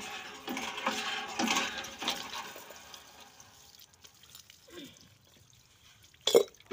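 Water from a hand pump gushing and splashing into buckets and over a person's head, with small clinking knocks as the pump is worked. The splashing dies down about halfway through, and a short, sharp loud sound comes near the end.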